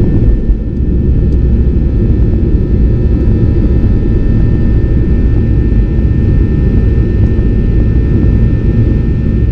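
Boeing 737-800's CFM56 jet engines at climb power, heard from inside the cabin just after takeoff: a loud, steady rumble with a faint steady whine above it.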